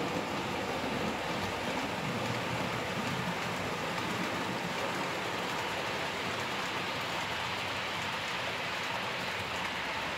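H0 scale model trains running, their small metal wheels rolling over the track with a steady, even rattling hiss as a tank-wagon freight train passes close by.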